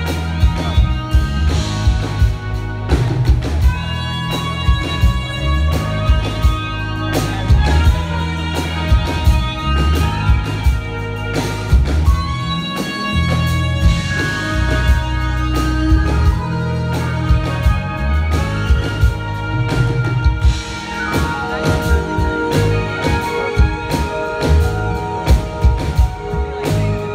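Live jazz band playing: drum kit, electric bass and keyboards, with a trumpet playing long held notes over them.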